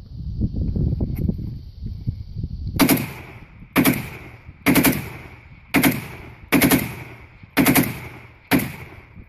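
A Kalashnikov-pattern assault rifle fired in single shots: seven loud shots about a second apart, starting about three seconds in, each trailing off in an echo.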